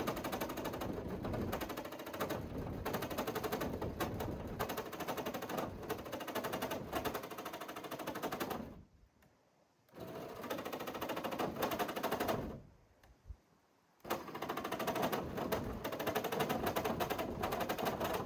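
Cordless jigsaw cutting through the steel sliding-door panel of a van, the blade chattering rapidly. It cuts slowly and jumps while cutting, a sign that the saw is too weak for the thick metal. The sound stops twice for about a second, near the middle and again a few seconds later.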